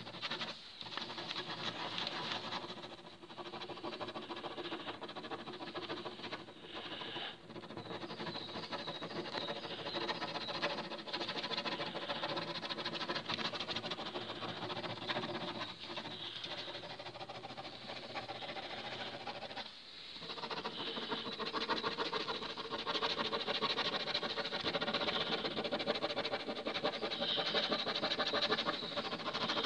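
Pen nib scratching across paper in fast, continuous circular scribbling strokes, with a few brief pauses. A faint steady hum sits underneath.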